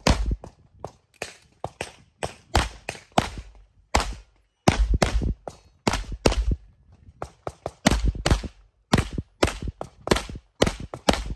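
Rapid gunshots from a competitor shooting a practical-shooting stage: quick strings of shots, several a second, broken by short pauses, with about thirty shots in all.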